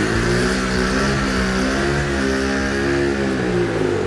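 110cc quad bike's small single-cylinder engine revving hard and held at high revs, its pitch slowly swelling and dipping, as during a burnout.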